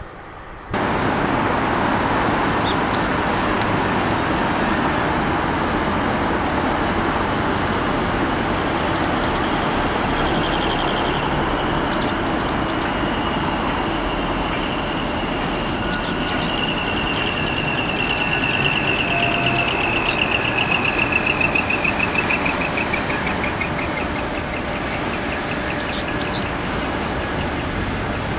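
Steady outdoor background noise, starting abruptly about a second in, with small birds chirping now and then and a long, rapid trill through the middle.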